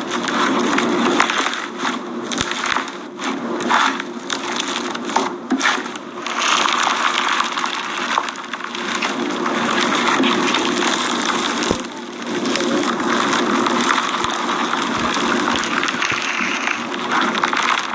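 Slime being squeezed and kneaded by hand, a continuous wet crackling and squishing with many small pops.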